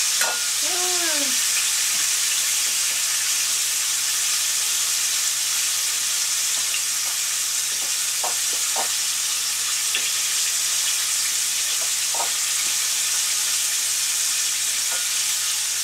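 Chicken frying in hot oil, a steady, even sizzle.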